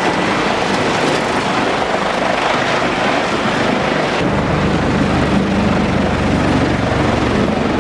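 Large diesel-powered wood chipper running at full power, a loud steady rush of machine noise as it chews timber; about four seconds in a steady low engine drone comes up under the noise.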